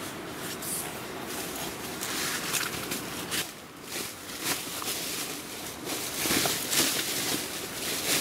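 Fabric rustling and flapping as a tent's mesh inner and a patterned floor sheet are handled, shaken out and spread across the tent floor. It gets louder in the second half.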